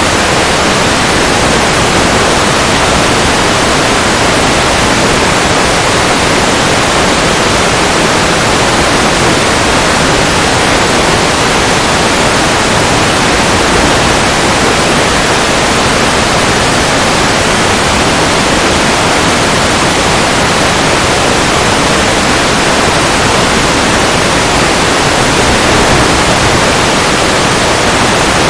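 Loud, steady static hiss from an analog FPV video receiver's audio channel, with no signal coming through: the video link from the aircraft has dropped out.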